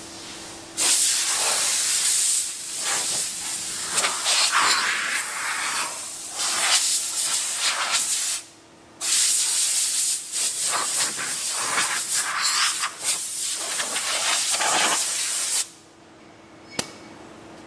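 Compressed air hissing from a handheld blow gun as it is swept over a sanded body panel to blow off the sanding dust, in two long blasts with a brief pause about eight seconds in. The hiss rises and falls as the nozzle moves.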